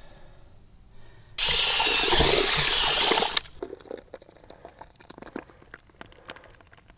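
Thin, soupy anchoring cement poured from a bucket into a flagpole sleeve in the ground. It gushes and splashes loudly for about two seconds, then drips and trickles.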